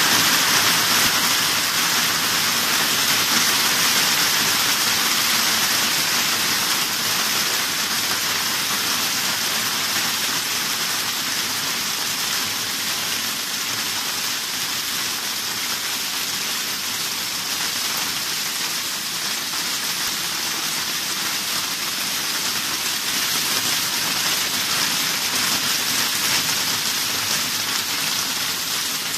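Hailstones falling heavily onto a garden's lawn, paths and shrubs: a steady, dense hiss that eases a little after the first few seconds.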